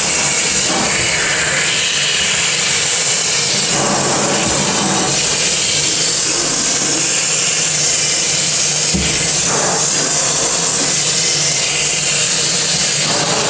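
Water from a spigot spraying onto a perforated rubber fish-cleaning mat and into a stainless steel sink, a steady hiss, as fish scales and slime are rinsed off it.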